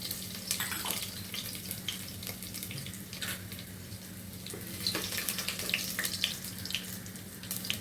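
Garlic, mustard seeds and curry leaves sizzling in hot oil in a pan, with scattered crackling pops, over a steady low hum.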